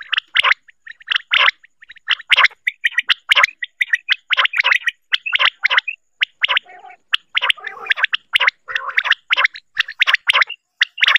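Female quail calling, a recorded lure call used to draw quails in for trapping: short, rasping notes, often in pairs, repeated several times a second.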